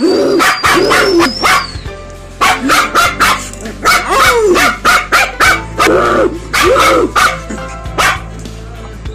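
Puppy barking repeatedly in short, sharp yips, with a brief pause about two seconds in.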